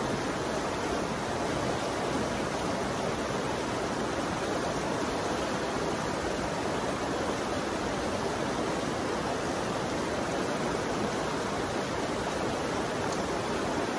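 A fast-flowing river rushing steadily, an even wash of water noise with no breaks.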